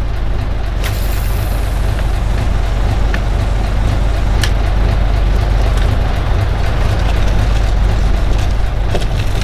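Boat engine running steadily: a low, even hum under a rushing noise, with a couple of faint clicks.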